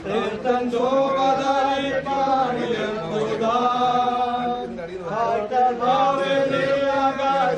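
Voices singing a slow funeral hymn in long, held notes that glide from one pitch to the next.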